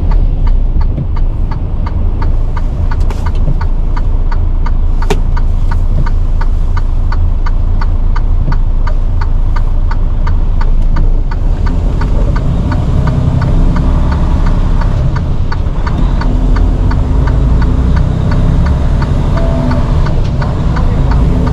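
Semi truck's diesel engine running with a steady low rumble, heard from inside the cab, with a fast regular ticking over it.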